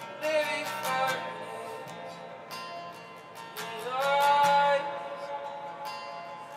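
Worship music: a strummed acoustic guitar with a voice singing, including a long held note that slides up into place about four seconds in.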